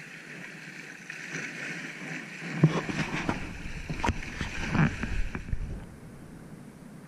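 Sea water lapping and splashing against shoreline rocks as a steady hiss. Over the middle few seconds a low rumble and a few sharp knocks come in, the loudest about two and a half seconds in.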